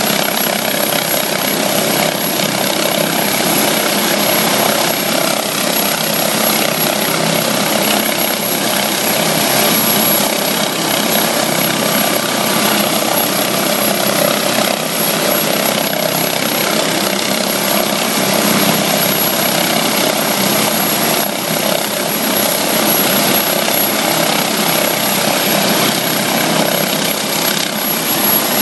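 Twin-turbine MD 902 Explorer helicopter running on the ground with its main rotor turning: a steady mix of turbine whine and rotor noise, holding level without spooling up.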